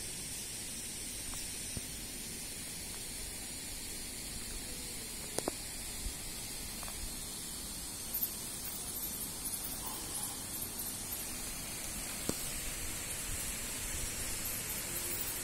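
Steady, even outdoor hiss with no distinct source, with a few faint clicks and knocks about five, six, eight and twelve seconds in.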